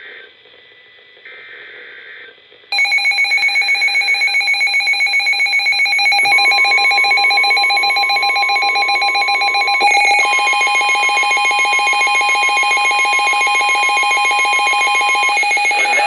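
The SAME data header of a NOAA Weather Radio warning comes through the radio's speaker as short warbling data bursts. Then the Midland WR-400 weather radio's alarm goes off suddenly, a loud, rapidly pulsing electronic beeping. About six seconds in, the broadcast's steady 1050 Hz warning tone joins it and holds for about nine seconds, while the alarm's pattern thickens with extra high tones about ten seconds in.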